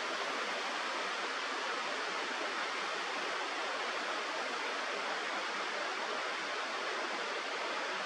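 Steady, even rushing of flowing water, like a river or stream, with no bird calls over it.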